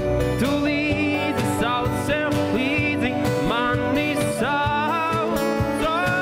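Acoustic band music in an instrumental passage: acoustic guitar accompaniment under a lead melody line that slides and bends between notes.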